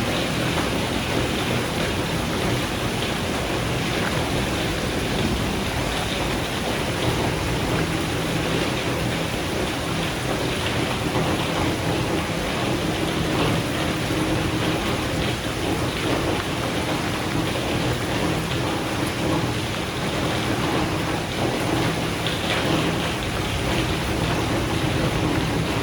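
Thunderstorm: steady rain falling, with a low rumble of thunder underneath.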